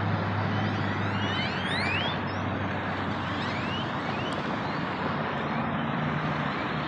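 A flock of birds calling: many short rising chirps overlapping, thickest in the first half, over a steady rushing background noise with a low hum.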